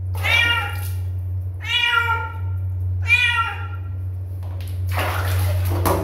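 Ginger-and-white kitten meowing three times, each call falling away at its end, while it is washed in a basin of water. Near the end comes a burst of water splashing as it is lifted out of the basin.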